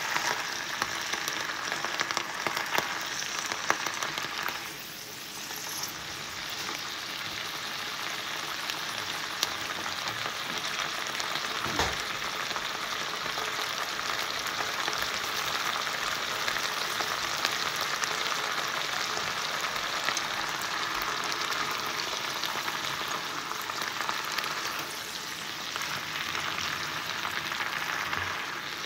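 Purple kale flower and white chard stir-frying in sesame oil over high heat: a steady sizzle throughout. Chopsticks click against the pan now and then, most often in the first few seconds, with one sharper knock about twelve seconds in.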